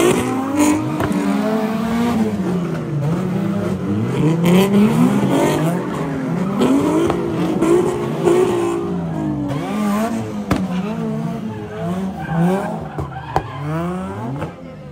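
Car engine revving up and down over and over, with tyres squealing and skidding, as a car does burnouts or donuts on the pavement.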